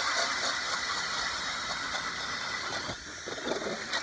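Milwaukee 2704 cordless hammer drill spinning an 8-inch Nils ice auger in a freshly drilled hole, churning water and slush to flush the ice chips out. The motor whine and splashing get quieter about three seconds in.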